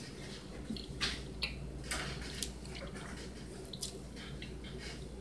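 A person chewing a crunchy homemade butter cookie: faint, irregular crunching and mouth clicks over a steady low room hum.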